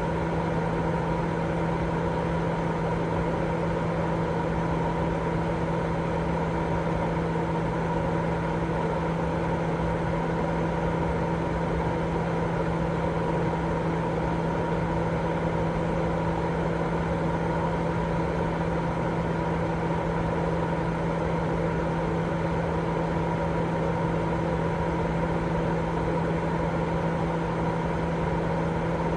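Continuous sleep-aid white noise: an even hiss with a steady low hum, not changing at all.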